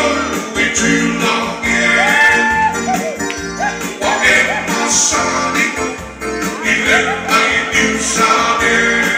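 Dance music with a singer, guitar and a steady beat.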